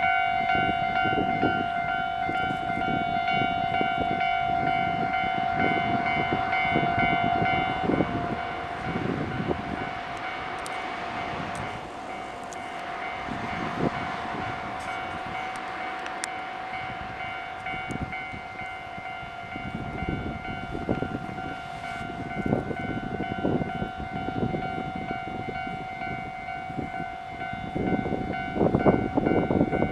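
Japanese level-crossing warning bell ringing its repeated "kan-kan" alarm as a train passes, with the rumble and clatter of the train's wheels on the rails. The wheel noise is heaviest at the start and grows loudest near the end.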